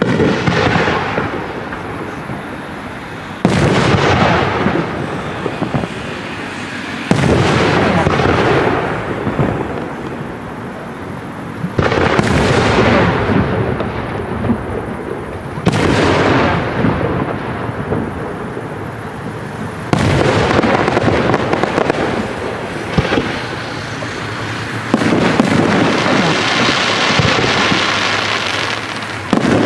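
Aerial firework shells bursting one after another, about eight in all, roughly every four seconds. Each is a sharp bang followed by a long rolling echo that fades slowly. Near the end, a steady crackling of glittering stars fills the gap before the next bang.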